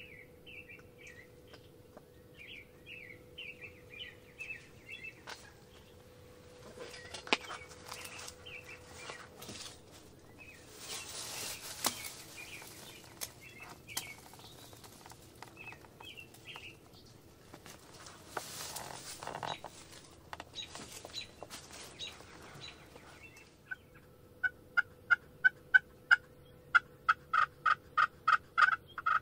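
Turkey yelping: a long, loud run of evenly spaced yelps, about four a second, starting near the end. Before it come faint small-bird chirps and some rustling.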